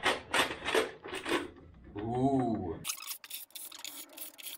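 Rapid clicking and rattling as the timing cover of a Land Rover TDV6 diesel engine is handled and pressed into place. The sound changes abruptly partway through to quieter, scattered clicks.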